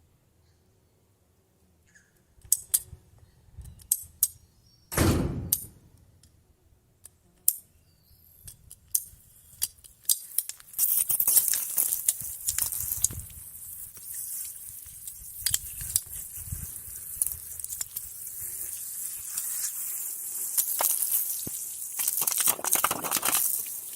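Scattered clicks, knocks and scrapes of PEX pipe and push-fit joiners being handled during a pipe repair, with one heavier thump about five seconds in. From about ten seconds a steady high hiss joins the clicking.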